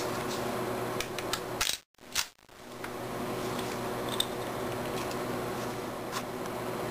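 Light clicks and knocks of an AR-15-style rifle being handled, over a steady room hum. The sound cuts out for about half a second around two seconds in.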